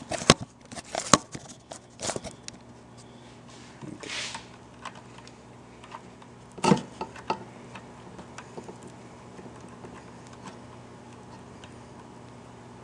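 Knocks and clicks of a camera being handled and set down, several in quick succession in the first two seconds, then scattered small clicks and taps over a faint steady electrical hum.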